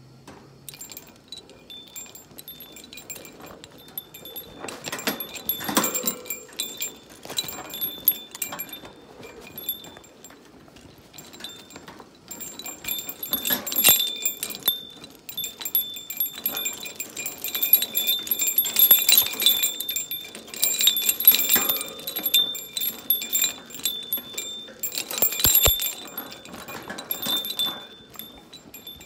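Hanging metal-and-plastic cage toys jangling and clinking as a pet budgerigar plays with them. There is a bell-like ringing and a rattle of chain and knocks, busiest in the second half.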